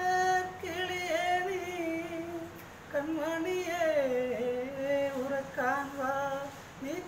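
A man singing unaccompanied: a long held note with a slight waver, a brief pause for breath about two and a half seconds in, then a phrase of sliding, ornamented notes.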